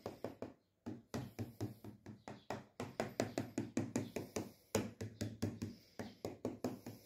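A fork pricking a sheet of homemade phyllo dough in a baking pan: quick light taps, about six a second, with a brief pause just under a second in.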